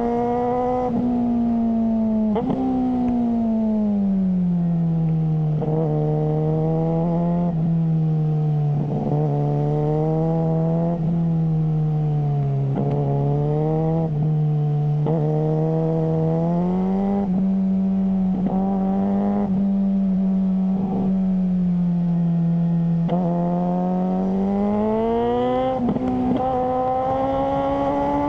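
Suzuki GSR600 inline-four engine through a GPR Ghost aftermarket exhaust, running steadily at moderate revs. Its pitch sinks slowly, holds, then climbs again near the end, with short sharp blips every second or two.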